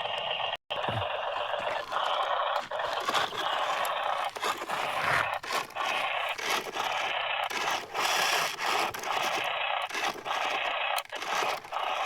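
Toy RC vehicles working over the ground with a continuous scraping and rattling noise, broken by many small clicks and knocks.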